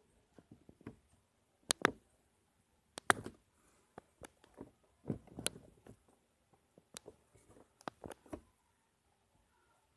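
Clay slime being handled: irregular sharp clicks and short soft squelches as it is pressed, poked and stretched.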